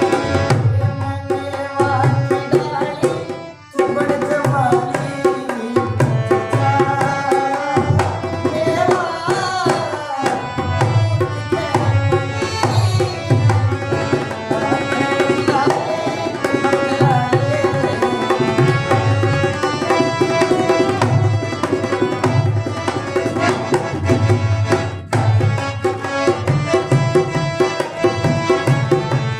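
Instrumental passage of Haryanvi ragni folk music: a hand drum beats a steady rhythm under a sustained melody line, with a brief break about three and a half seconds in.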